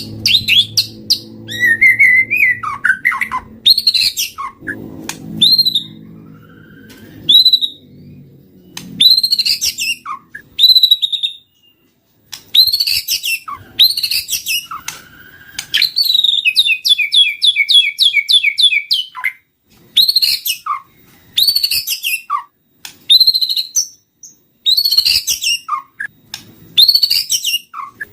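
White-rumped shama singing a loud, varied song of whistled phrases that glide up and down, with a fast run of repeated notes about two-thirds of the way through. A low hum sits under the song for roughly the first third.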